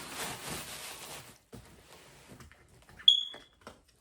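Rustling and a few handling clicks, then a single short, loud electronic beep about three seconds in from the keypad of a small number-code safe.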